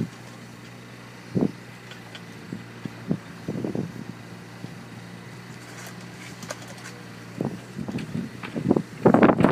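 Hyundai R220LC-9A long-reach excavator's diesel engine running steadily while the boom swings a loaded bucket, with a few scattered knocks and a cluster of loud thumps and buffeting near the end.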